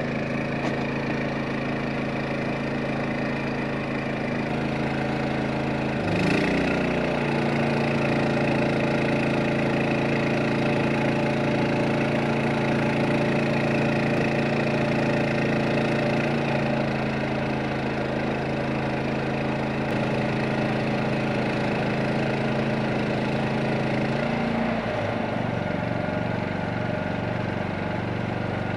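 Harbor Freight Predator 8750 inverter generator running steadily. About six seconds in, its engine speeds up under the load of the house's well pump and holds the higher speed. It drops back to its lower speed a few seconds before the end.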